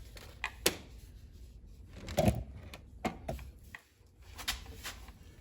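A few scattered sharp clicks and knocks from tools and parts being handled, loudest in a short cluster about two seconds in.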